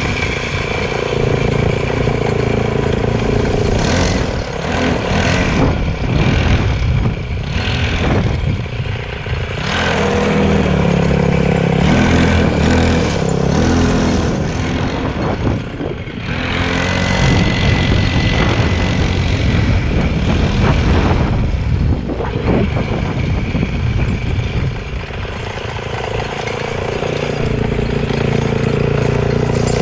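Motorcycle engine running, its revs rising and falling several times with brief drops in between.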